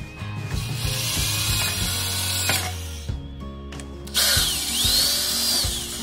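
Handheld power drill run in two bursts, the first starting about half a second in and the second a little after the middle. In each, the motor whine rises as it spins up, holds, and drops as it slows.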